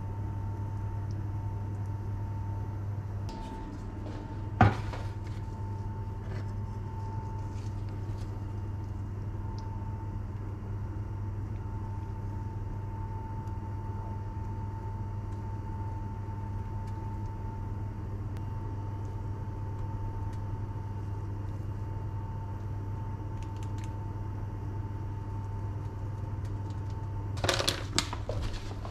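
A steady low hum with a faint high tone underneath. About five seconds in, a single sharp knock as the blender jar is tapped against the ceramic bowl. Near the end, a plastic packet crinkles as it is handled.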